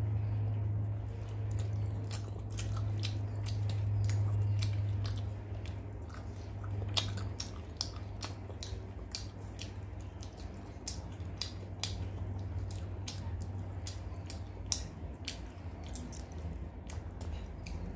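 Close-miked eating by hand: chewing a mouthful of rice and chicken curry with many wet mouth clicks and smacks, and fingers squishing and mixing rice on a steel plate. A low steady hum runs under it and fades after about six seconds.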